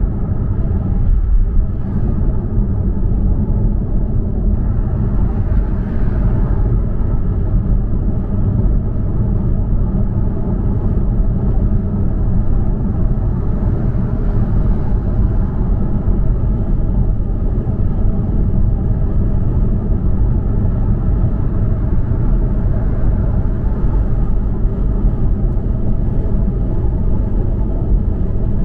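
Steady low rumble of tyres on the road and the engine, heard inside a car's cabin cruising at highway speed.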